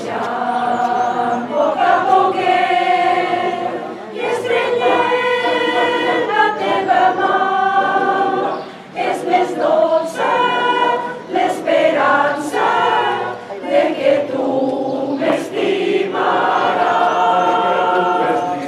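A choir singing a Catalan caramelles song in phrases, with short breaths between lines.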